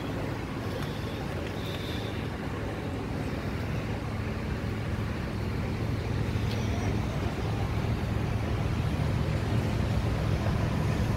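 A vehicle engine running steadily at idle, an even low hum that grows slightly louder toward the end.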